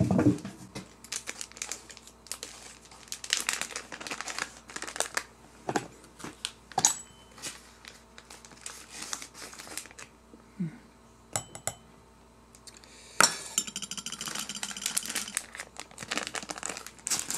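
A plastic food packet crinkling and rustling as it is handled and opened, with scattered clinks of a metal spoon against a dish and a sharp knock near the end.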